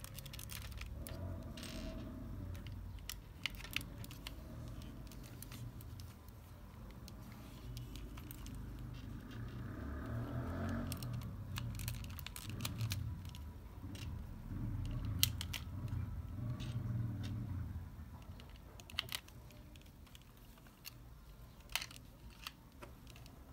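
LEGO Technic plastic parts handled and snapped together: scattered sharp clicks as pins are pushed into beams, over a low rumble of handling.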